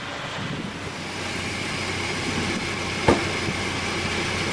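Steady motor-vehicle running noise with a faint high whine, and one sharp knock about three seconds in.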